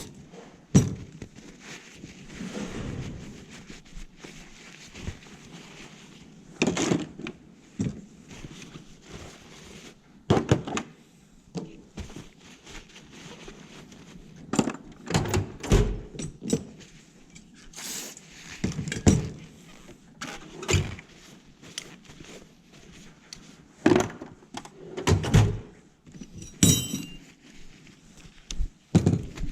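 Metal hand tools being put away: irregular clunks and clinks as tools are set down and handled in a toolbox, with a brief metallic ring near the end.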